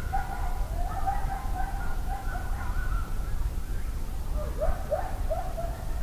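A group of coyotes howling and yipping together in a wavering chorus, breaking into short rising-and-falling yips from about four and a half seconds in.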